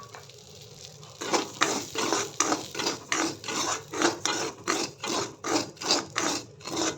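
A spoon scraping and stirring broken wheat (dalia) as it fries in ghee in a metal kadai. The rhythmic scraping strokes start about a second in.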